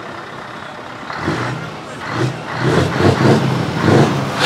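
A heavy truck's diesel engine revved in a series of throttle blips. The blips start about a second in and grow louder toward the end.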